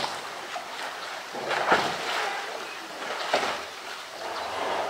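Polar bear knocking and pushing an empty blue plastic drum with its paws and mouth: a few dull, hollow knocks spaced a second and a half or more apart, the loudest about a second and a half in, over a steady wash of water.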